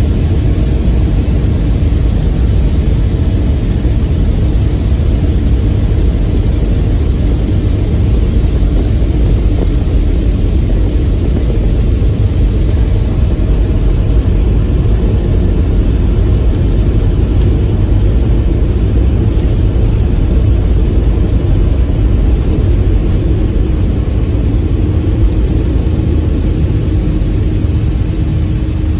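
Boeing 737-500 takeoff heard from inside the cabin: the jet engines at takeoff thrust with a heavy, steady low rumble of the roll down the runway, running on through liftoff. A faint steady hum comes in near the end.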